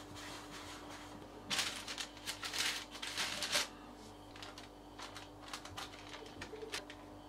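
Parchment baking paper rustling and crinkling for about two seconds as the lined baking tray is handled, followed by scattered soft taps and rustles as a hand presses the dough balls flat on the paper.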